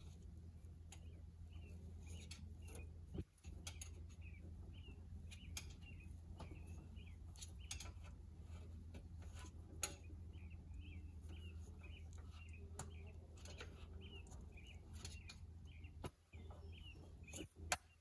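Faint scattered clicks and knocks, with a small bird chirping over and over, about twice a second, above a steady low hum.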